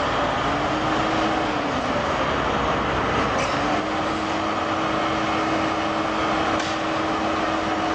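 A giant LeTourneau diesel-electric wheel loader running as it manoeuvres: a steady heavy mechanical noise with a whine that rises and falls about a second in, then holds level from about four seconds in.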